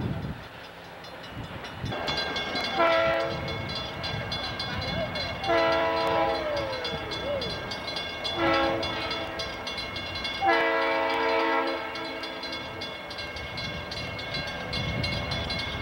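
Diesel locomotive's multi-chime air horn sounding four blasts, the second and fourth held longer than the others, over the rumble of the approaching train.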